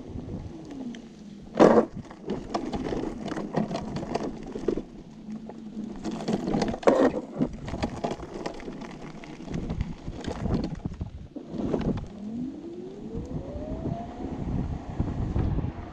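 Homemade electric go-kart with hoverboard hub motors rolling over gravel, its wheels crunching and clattering, with two sharp bumps about two and seven seconds in. Near the end the hub motors' whine rises steadily in pitch as the kart speeds up, over wind rumble on the microphone.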